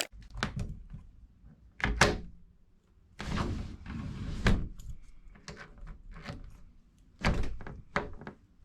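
Sliding patio door with a newly fitted handle and latch being worked and tried: a series of clunks and clicks, with a longer rattling stretch around the middle.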